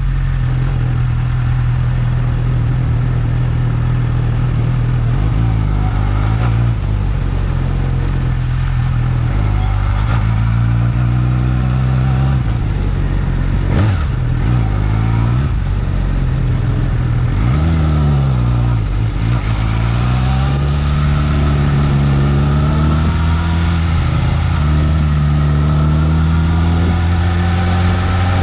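Yamaha R6 inline-four engine running on its stock exhaust, its pitch steady for long stretches and then rising and falling several times. There is a single sharp click partway through.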